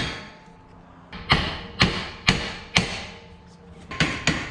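Hammer blows on steel in a car's front suspension, knocking to free a tie rod end. After a short pause come four strikes about half a second apart, each with a faint metallic ring. After another pause there are a few quicker strikes near the end.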